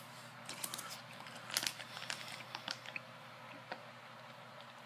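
Faint chewing of a soft baked fish snack close to the microphone: scattered small wet mouth clicks, a few bunched together about one and a half seconds in.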